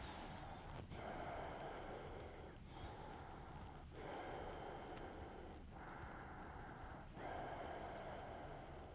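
A man's slow, audible breathing, long even inhales and exhales alternating about every one and a half seconds, faint and steady, while he holds a yoga forward fold.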